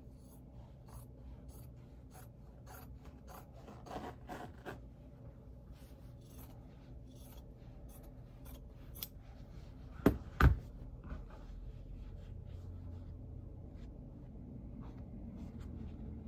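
Small scissors snipping through folded layers of fabric, a quick run of short snips. A little past halfway come two sharp knocks close together, the loudest sounds, then fabric rustling as it is handled.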